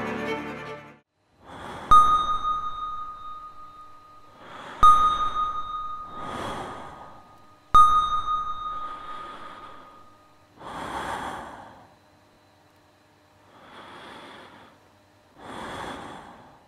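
Three struck chime notes about three seconds apart, each a single bright ringing tone that fades slowly, among soft breathy swells of about a second each. Bowed-string music fades out just before the first strike.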